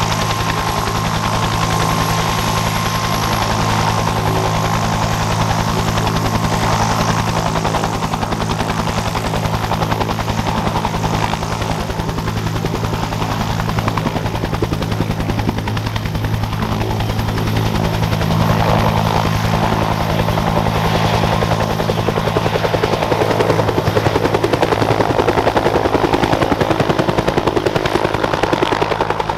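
Bell UH-1 Iroquois "Huey" helicopter running at high power for take-off: the turboshaft whine over the fast, steady beat of its two-blade main rotor. The sound grows louder in the second half as the helicopter lifts off.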